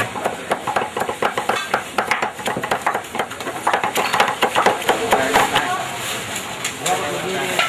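Cleaver chopping vegetables on a round wooden chopping block: a rapid run of sharp knocks, several a second, that stops about six seconds in.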